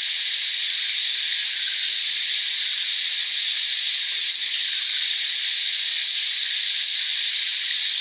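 A steady, even hiss, mostly high-pitched, holding at the same level with no breaks.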